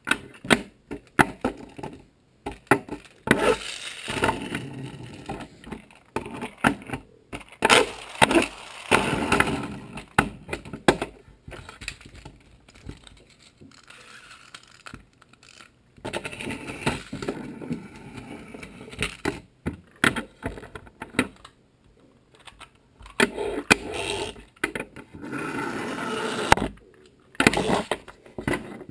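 Small wind-up toy Hummer trucks handled on a wooden tabletop: a busy run of plastic clacks and knocks as they are set down and bump together, with stretches of their little wheels rolling and rattling across the wood.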